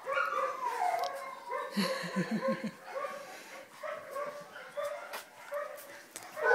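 Black puppies whining and yipping as they play, with high wavering whimpers and a quick run of short, lower yaps about two seconds in.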